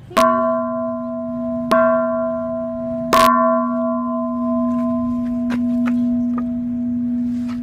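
Large hanging temple bell struck three times, about a second and a half apart, each strike ringing on in a deep, steady hum with higher overtones that slowly fades.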